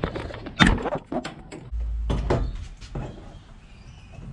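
Plastic push-in trim clips popping out of a Toyota HiAce's roof lining as the lining is pulled down: several sharp clicks and knocks over the first three seconds, with a low rumble for about a second in the middle.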